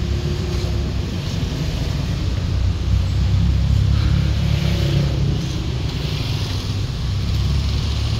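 Street traffic: queued cars running with a steady low rumble, and motorcycles passing.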